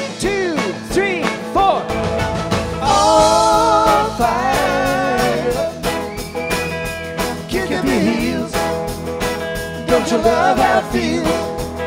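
A live country-rock band playing: electric and acoustic guitars, bass and drums over a steady beat, with sliding guitar notes at the start. Several voices come in singing in harmony about three seconds in.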